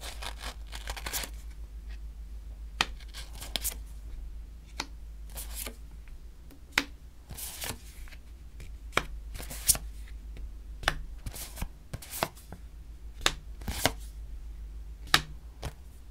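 Tarot cards being dealt one by one onto a tabletop: a string of sharp taps and short slides as each card is laid down and drawn from the deck, at irregular intervals.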